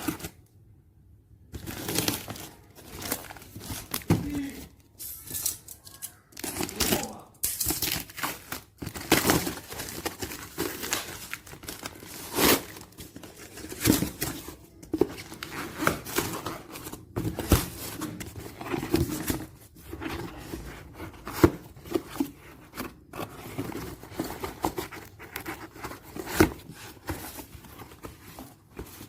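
Packaging being handled and opened: irregular crinkling and tearing with scattered sharp clicks and knocks.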